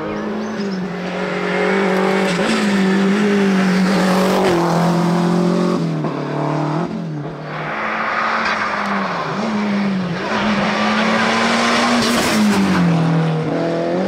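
Rally car engines at full throttle climbing a tarmac stage, one car and then another. The engine pitch climbs and drops back with each quick upshift, several times.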